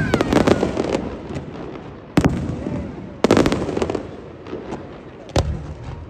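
Aerial firework shells bursting overhead: sharp bangs every one to two seconds, several trailing into a spray of crackling.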